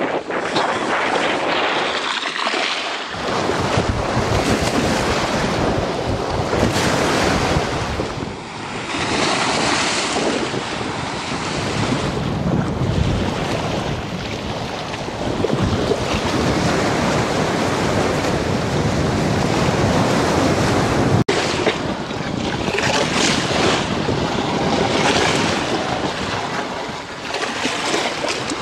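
Strong wind buffeting the microphone over waves washing against the concrete bank of a reservoir, rising and falling in gusts.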